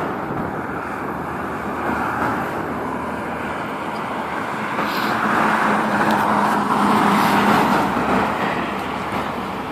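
Road traffic: a steady rush of tyres and engines that swells as a vehicle passes, with a low engine hum, about five to eight seconds in.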